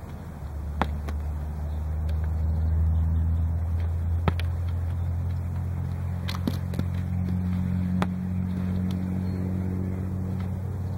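About five sharp clacks from atlatl darts being thrown and striking, over a steady low engine hum.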